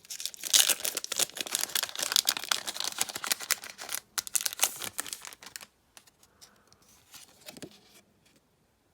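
Foil wrapper of a Pokémon Celebrations booster pack being torn open and crinkled, a dense crackle for about four seconds that thins out, followed by a few faint rustles near the end.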